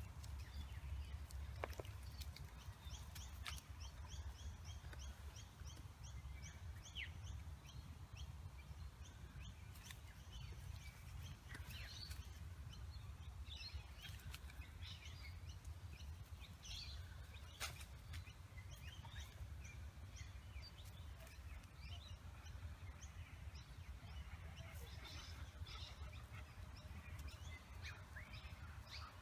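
Faint birds chirping on and off over a low steady outdoor rumble, with a quick run of repeated high chirps a few seconds in.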